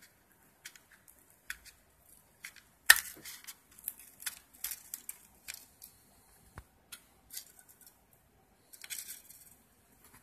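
Handling noise: scattered light clicks and scratches, with one sharper click about three seconds in and a short scratchy patch near the end.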